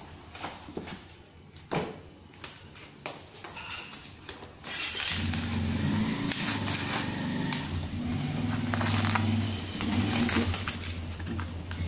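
Sealed plastic blister cards being handled and pulled apart by hand: scattered light clicks and knocks, then plastic crackling and rustling. About a third of the way in, a steady low machine hum sets in under the crackling.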